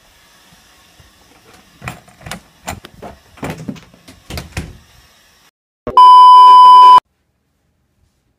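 Seven or eight knocks on a door in quick pairs, then a loud, steady, high beep tone lasting about a second that cuts off suddenly.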